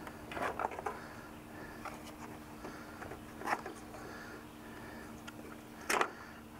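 Plastic pickup tail light assembly being handled, with light rustling and scattered small clicks, and a sharper click near the end as its wiring connector is unplugged.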